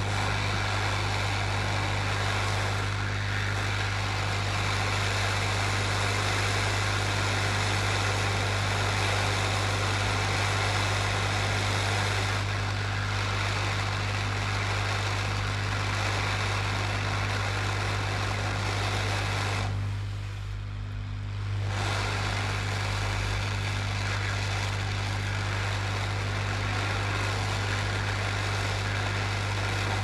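Electric blower fan running steadily: a low electrical hum under an even rush of air, easing off briefly about twenty seconds in.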